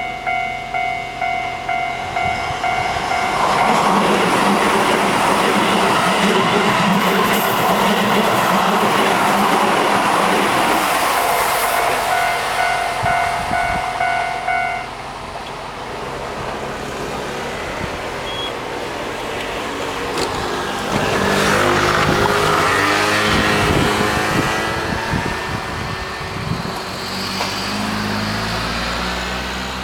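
Japanese level-crossing alarm bell dinging about twice a second while a Keihan electric train runs through the crossing, its loud rumble and wheel noise on the rails drowning the bell for several seconds. The bell stops about 15 seconds in, and later a road vehicle drives across, its engine rising and falling in pitch.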